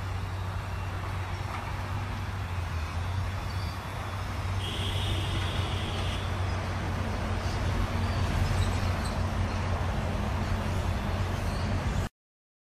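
Steady outdoor background rumble of motor traffic with a low engine hum, and a brief high-pitched tone about a third of the way in; it cuts off suddenly near the end.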